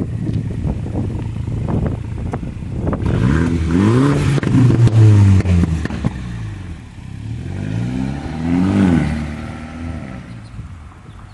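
Mini Cooper S with a straight-piped exhaust (resonator and muffler deleted) pulling away. It rumbles at low revs with sharp crackles, then revs up loudly about three seconds in, the note rising and falling. It rises again near the end of the pull before fading as the car drives off.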